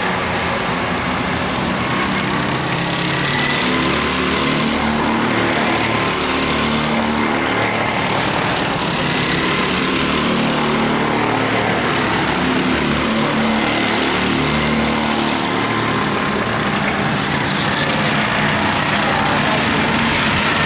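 Several rental go-kart engines running at race speed as karts pass, their overlapping notes rising and falling in pitch under a steady drone.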